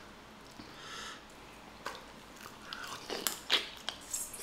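Boiled crawfish being peeled by hand and eaten: shells cracking and snapping, with chewing close to the microphone. The sharp clicks come thicker and louder from about three seconds in.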